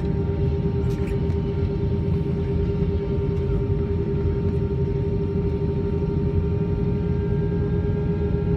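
Airbus A320 cabin noise while taxiing: a steady low rumble from the jet engines at low thrust, with a steady whine over it.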